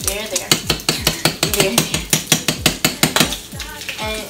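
A spoon stirring grits in a saucepan, clinking against the pot about five times a second. The clinking stops near the end.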